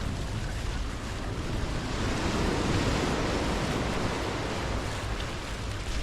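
Surf breaking on a beach: a rush of wave noise that swells about halfway through and then eases off, over the low rumble of wind buffeting the microphone.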